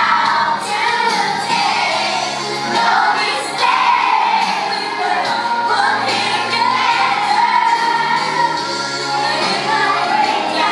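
A group of children singing a song together over accompanying music, with long held notes.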